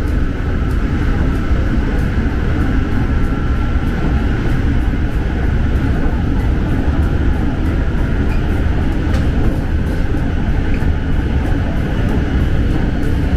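Steady low rumble of an SRT Red Line electric commuter train running along the line, heard from inside the carriage.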